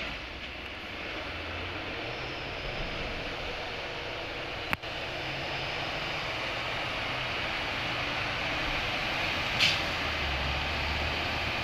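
Heavy truck engine running with steady road noise, its low hum growing louder toward the end. There is a sharp click a little before halfway and a brief hiss near the end.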